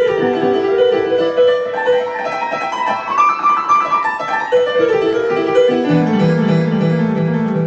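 Honky-tonk piano solo played live on a Yamaha Motif XS8 keyboard. Quick runs of notes climb higher through the middle, then fall back to lower, repeated chords near the end.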